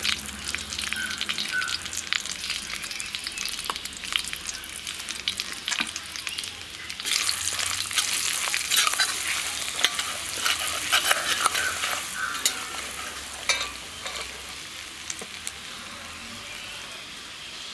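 Hot sesame oil sizzling in a black iron kadai as fenugreek powder and spices are stirred in with a steel spoon, the spoon scraping and clicking against the pan; the oil is off the heat but still very hot. The sizzle and scraping grow louder about seven seconds in, then settle to a softer sizzle near the end.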